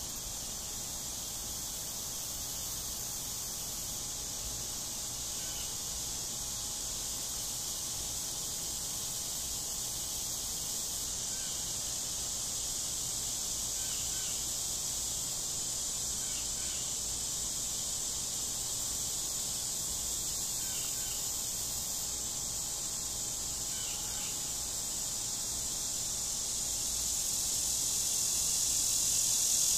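Steady, high-pitched insect chorus, growing louder near the end.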